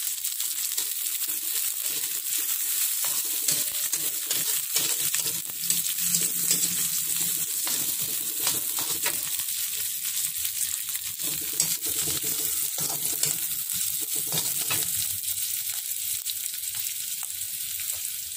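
Sliced red chillies and shallots sizzling in hot oil in a wok, stirred with a metal spatula that scrapes and taps against the pan many times over a steady frying hiss.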